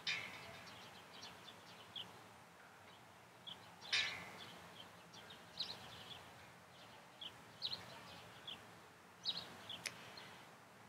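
Small birds chirping in short, scattered calls over a faint outdoor hush. Two short noisy sounds break in, one at the start and a louder one about four seconds in.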